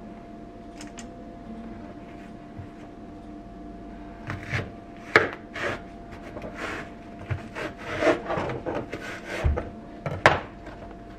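Kitchen food-prep noises: a run of scraping, rubbing strokes with a few sharp knocks, starting about four seconds in, over a faint steady hum.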